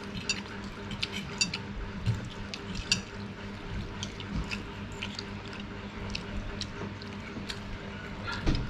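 Close-miked wet mouth sounds of eating fried noodles: scattered chewing and lip-smacking clicks, with a louder slurp of noodles near the end, over a steady low hum.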